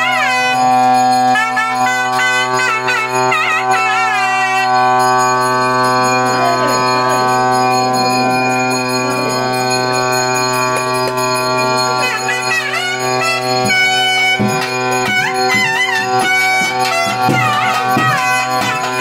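A reed pipe plays an ornamented melody over a steady drone, bending and wavering between notes, with long held notes through the middle stretch.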